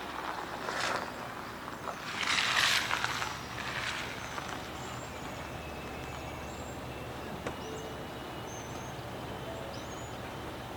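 Outdoor ambience: a vehicle passing by, swelling and fading over about two seconds, followed by faint bird chirps.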